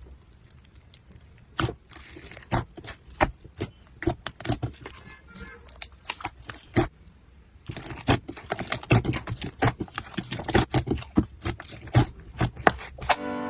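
Slime being pressed and squeezed by hand, giving irregular crackling pops and clicks that come sparsely at first and thicken about halfway through. Music starts just at the end.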